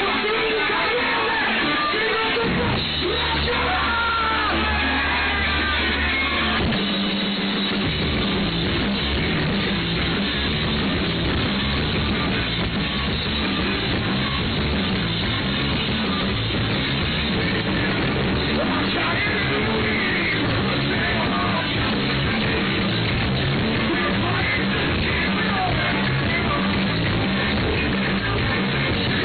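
Live rock band playing loudly. A guitar opens, bass notes come in about two and a half seconds in, and the full band is playing from about seven seconds.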